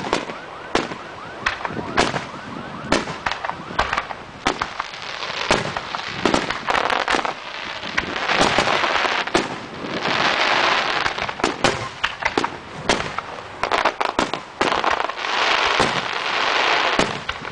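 Aerial fireworks show: shells bursting in a rapid, irregular string of sharp bangs, with dense crackling stretches near the middle and again near the end.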